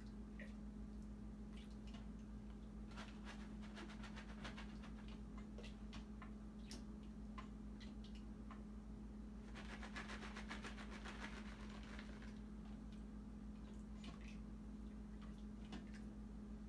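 Faint crinkling and clicking of a plastic bag of shredded cheddar being shaken out into an electric pressure cooker's pot, thickest about ten seconds in, over a steady low hum.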